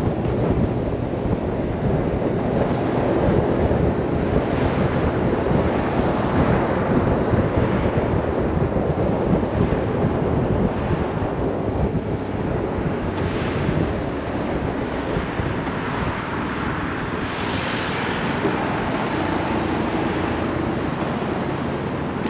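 Wind rushing over the microphone while riding a BMW R 1150 RS, with the bike's air/oil-cooled boxer-twin engine running underneath; it gets a little quieter in the second half as the bike slows.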